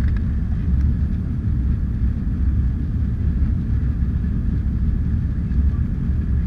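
Jet airliner heard from inside the cabin during take-off: a steady, loud low rumble of engines and airflow with a faint steady high whine above it.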